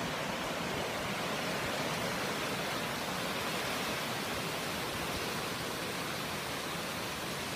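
Brook in full flood: fast, high brown water rushing with a steady, even roar.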